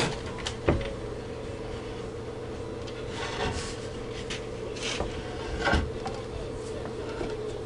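A 2x6 wooden board knocking and scraping against a workbench as it is handled: a sharp knock about a second in, a few rubbing scrapes in the middle, and a second knock near the end. A steady low electrical hum runs underneath.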